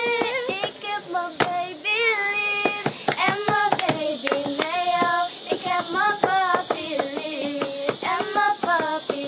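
Young women singing a song together, clapping their hands along with it.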